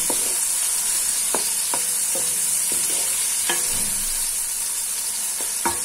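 Chopped onion and tomato frying in oil in a metal kadhai, sizzling steadily as the tomatoes are cooked down until soft. A wooden spatula stirring the pan gives irregular taps and scrapes against the metal, with the sharpest one near the end.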